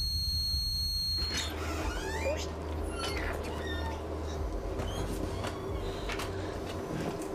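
A steady high-pitched tone over a low hum, then, about a second in, the inside of a moving rail carriage: wheel squeals rising in pitch, several sharp clicks and knocks, and a steady low rumble.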